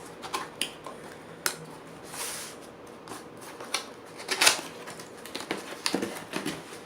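Keyboard packaging being handled during unboxing: scattered clicks, light knocks and a short rustle, with a sharper knock about halfway through.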